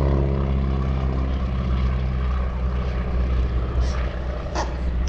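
Stearman biplane's radial engine and propeller droning as it makes a pass, the pitch easing slightly down in the first second or so.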